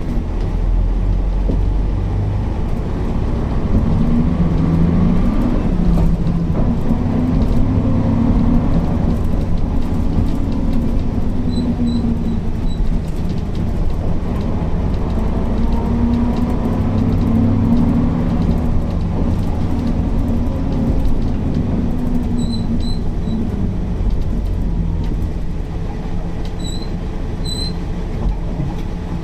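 Mercedes-Benz O408 bus's diesel engine running under way, its pitch climbing and dropping several times as the bus pulls away, accelerates and shifts gear.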